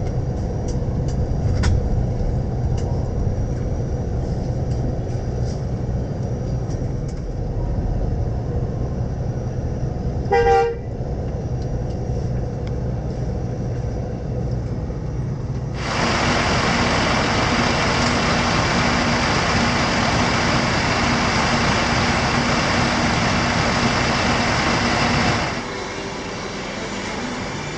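Bus running with a steady low engine and road rumble. A short vehicle-horn toot sounds about ten seconds in, then a louder steady hiss lasts about nine seconds before the sound drops to a quieter hum near the end.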